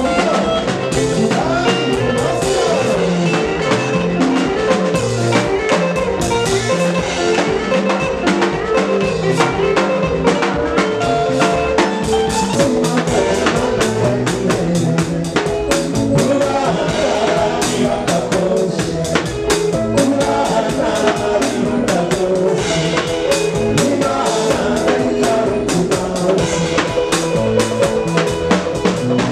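Live band music: a man singing over electric bass, keyboard and a drum kit keeping a steady beat.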